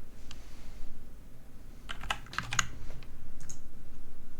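Typing on a computer keyboard: scattered keystrokes, with a quick run of several keys about two seconds in.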